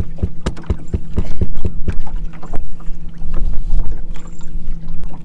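Electric trolling motor running with a steady low hum, while frequent irregular knocks and slaps from the boat sound over it.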